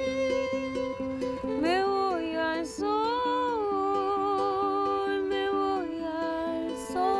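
Acoustic music: a bowed violin plays a gliding, wavering melody over plucked strings repeating a steady rhythmic figure.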